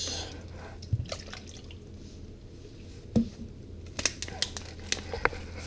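A short trickle of water into a plastic measuring cup that fades out within the first second, followed by scattered light clicks and knocks of plastic being handled, with one louder knock about three seconds in and a run of small clicks near the end.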